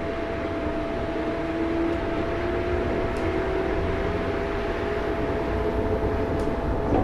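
Rubber-tyred automated metro train of the Taipei Wenhu line running with a low rumble, a steady whine and a motor tone that rises slowly as the train gathers speed.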